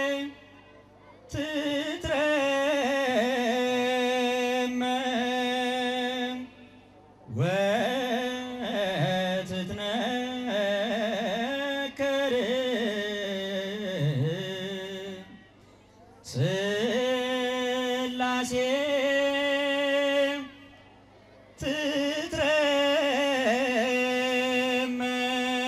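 A man singing an Ethiopian Orthodox hymn solo into a microphone. It comes in four long phrases of drawn-out, wavering notes, with a short pause for breath between each.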